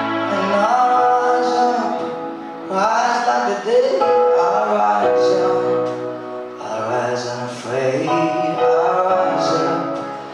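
A man singing into a microphone over sustained instrumental backing music, in a run of sung phrases with short breaks between them.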